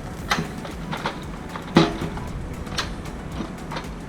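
Parts of an Epson L360 printer being handled and lifted, giving a few sharp clicks and knocks, the loudest a little under two seconds in.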